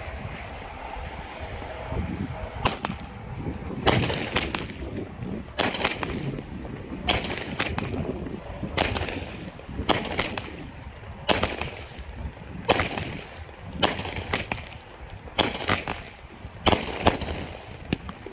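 Big Fireworks 'Fat Boy' 12-shot 200-gram firework cake firing. About a dozen sharp shots and breaks come roughly one every second or so, starting a couple of seconds in, and the last one comes shortly before the end.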